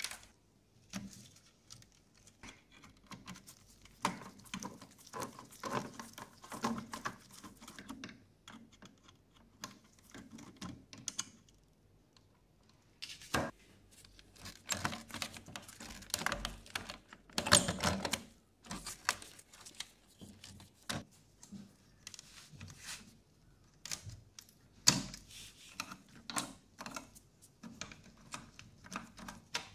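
Irregular clicks, taps and light scrapes from a screwdriver and gloved hands working on the plastic case and metal chassis of a 1979 National Panasonic mini TV being taken apart, with a few sharper knocks about halfway and again near the end.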